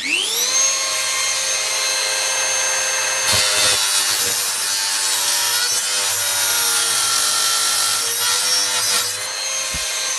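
Dremel rotary tool spinning up to a steady high whine, then cutting into the laptop's metal case with a rough grinding rasp for about six seconds before easing off the cut near the end.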